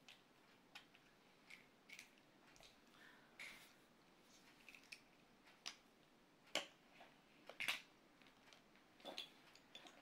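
Near silence with faint, scattered clicks and rustles of small objects being handled, the two loudest about six and a half and seven and a half seconds in.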